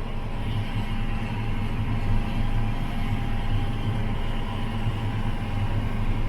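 John Deere 9420R articulated four-wheel-drive tractor's diesel engine running steadily under load, heard as a constant low drone from inside the cab with a faint steady whine above it.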